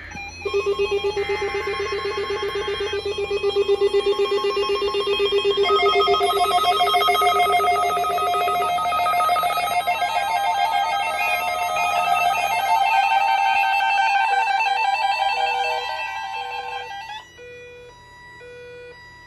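Weather alert radios sounding their alarms for the weekly test of the NOAA Weather Radio warning alarm tone: several electronic tones at different pitches, some steady and some trilling, overlap and shift. About 17 seconds in most of them cut off, leaving one beep repeating about once a second.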